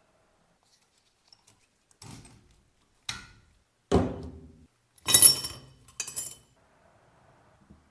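Metal parts and tools of a 2013 Ford Fusion's electric power steering rack being handled during assembly: five separate knocks and clinks about a second apart, the loudest and sharpest about five seconds in.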